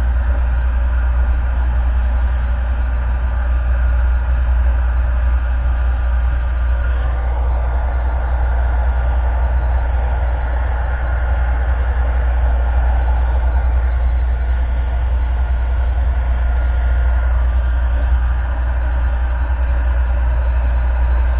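Heat gun running steadily on its maximum setting: a continuous rush of blown air over a low motor hum, the rushing a little stronger for several seconds in the middle, as it heats 3-inch PVC to soften it.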